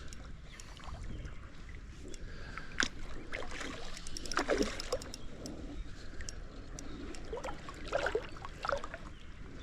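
Creek water running and sloshing while a hooked smallmouth bass is fought on the line, with scattered short splashes and clicks, the strongest about three and four and a half seconds in.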